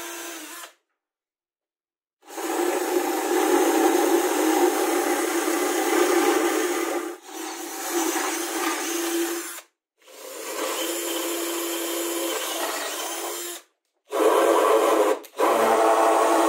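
Cordless drill-driver whining in several runs as it bores holes through plywood and drives screws into it. Each run starts and stops abruptly. The last two short runs, near the end, are the loudest.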